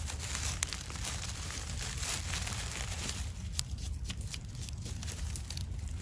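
Dry fallen leaves crinkling and rustling as a gloved hand digs a mushroom out of the leaf litter and cuts it with a knife, with scattered small sharp clicks.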